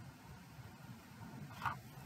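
Faint room tone with a low steady hum, and one brief short sound about one and a half seconds in.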